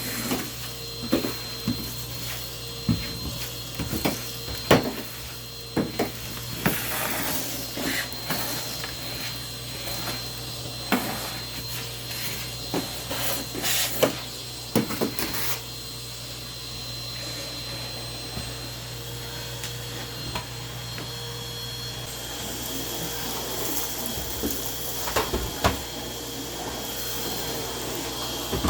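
Vacuum cleaner running steadily, with frequent knocks and clatter as it bumps and is moved around, most of them in the first half and a few more near the end.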